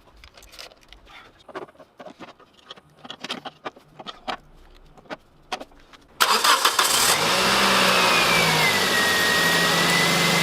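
Scattered light clicks and taps for about six seconds, then the Toyota Corolla XRS's 2ZZ-GE four-cylinder is cranked by the starter for about a second, catches and settles into a steady idle, with a whine that falls in pitch and levels off.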